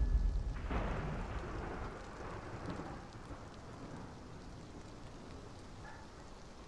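Thunder rumbling and fading away into steady rain.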